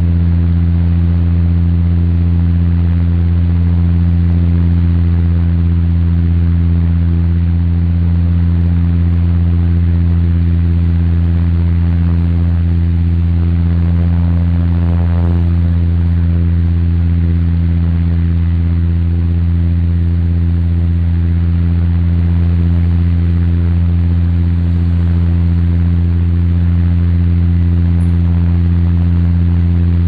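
Airliner's engines in cruise heard inside the cabin: a loud, steady low drone with a steady hum layered above it and a soft rush of air behind.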